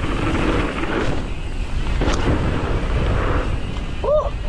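Wind buffeting the camera microphone and tyres rumbling over a frozen, snow-covered trail as an electric mountain bike descends fast, with a couple of sharp knocks from the bike over bumps. A brief pitched squeal or cry sounds near the end.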